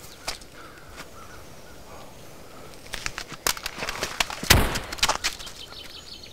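Scuffling and hurried footsteps through dry leaf litter. It is quiet at first, with faint birdsong, then from about three seconds in comes a run of sharp crunches and knocks, the loudest a heavy thump about four and a half seconds in.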